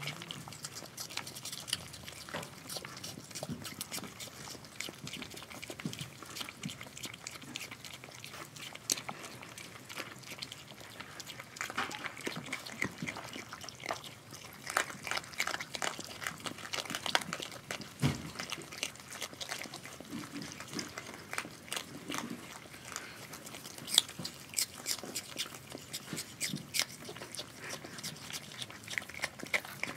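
Virginia opossums chewing and smacking food from a plastic dish: an irregular run of small wet clicks and smacks, with a few louder ones.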